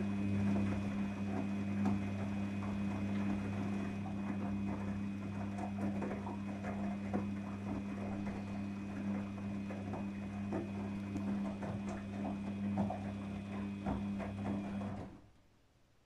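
Daewoo DWD-FT1013 front-loading washing machine tumbling its drum on a synthetics wash: a steady motor hum with water sloshing and wet clothes dropping inside the drum. The drum stops and the sound dies away about a second before the end.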